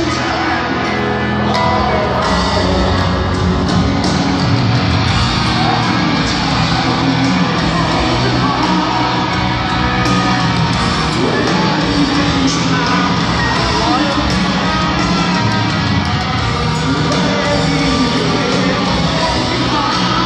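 Live rock band with piano and a singing voice, played loud over an arena's sound system and caught on a phone's microphone from the seats.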